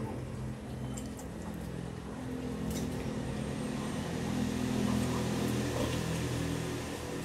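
Steady low hum of a running motor, even in pitch throughout, with a few faint clicks over it.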